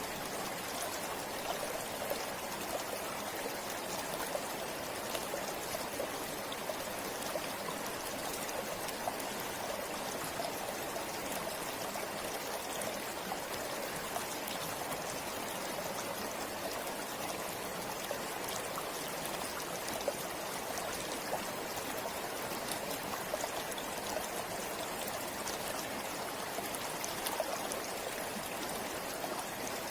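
Forest river flowing steadily: an even rush of water with many small splashes and drips throughout.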